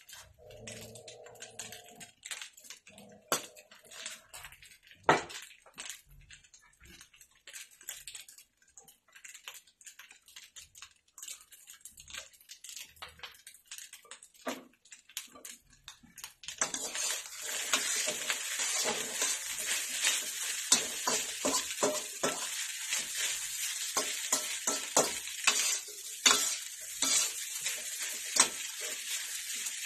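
Slotted metal spatula scraping and turning fried rice in a wok, with sparse clicks and scrapes at first. About halfway through, a steady sizzle of frying starts and the scraping strokes come quicker and louder over it.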